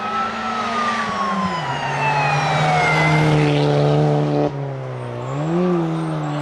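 Rally car driven hard past the camera, its engine at full throttle and a whine falling in pitch as it goes by. About four and a half seconds in the engine note drops off suddenly as the driver lifts and brakes for the bend, followed by a short rev blip as it downshifts.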